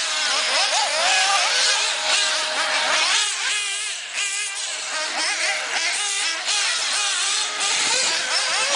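Several 1/8-scale nitro RC buggies racing, their small high-revving engines buzzing together, each rising and falling in pitch as it accelerates and lets off through the corners.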